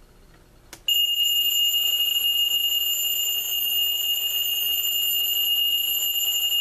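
Seiko QHK023SLH travel alarm clock's bell alarm ringing, really loud and steady, set off with a click about a second in.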